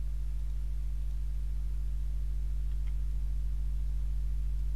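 Steady low hum with faint hiss underneath, typical of electrical mains hum picked up by the recording.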